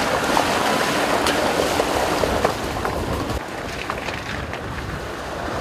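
Land Rover Defender driving through a shallow gravel stream: water splashing and stones knocking under the tyres, with wind on the microphone. It goes quieter a little over three seconds in, heard from further off.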